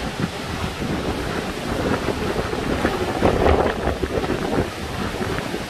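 Roar of Multnomah Falls mixed with wind buffeting the microphone: a steady rushing noise that swells briefly a little past halfway.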